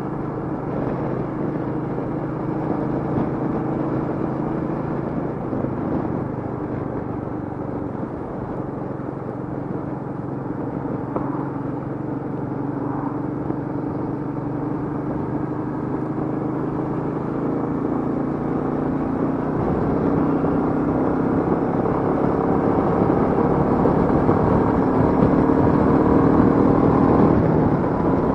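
Royal Enfield Meteor 350's single-cylinder engine running while the motorcycle is ridden along, heard from the handlebars. The engine note climbs gradually and grows louder over the second half.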